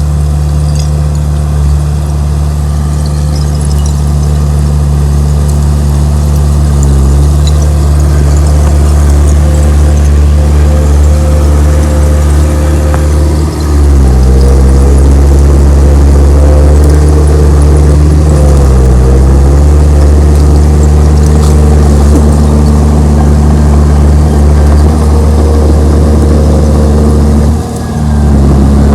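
Komatsu D31P crawler bulldozer's diesel engine running hard. Its pitch dips and recovers four times as it lugs under the load of pushing material.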